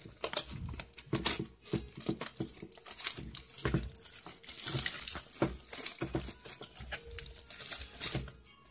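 Clear plastic wrapping film crinkling and tearing in irregular crackles as it is peeled by hand off a plastic toy basket.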